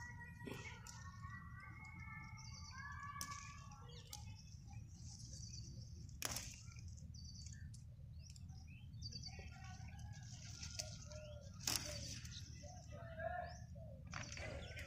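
Birds chirping and singing over a steady low rumble, with a few sharp snaps, the loudest about six and twelve seconds in, as yardlong bean pods are picked off the plants by hand.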